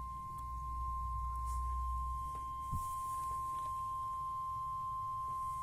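Steady sine-wave test tone played through a vintage Nikko TRM-50 amplifier under test, one unwavering pitch, with a low rumble beneath it for the first half.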